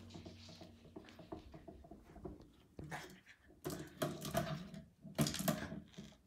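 A puppy's plastic toy ball rattling and knocking on a hardwood floor as the puppy noses and pushes it, in short clattery bursts with light clicks between, loudest in three bursts in the second half.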